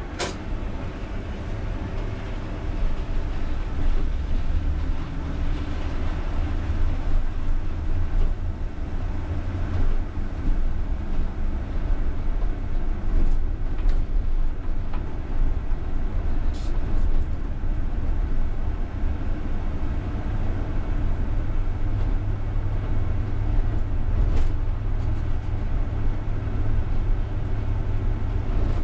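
UTTZ-6241.01 (MAZ-203T) trolleybus under way, heard from the driver's cab: a steady low rumble of the running gear and tyres on the snow-covered road, with a few faint ticks from the body.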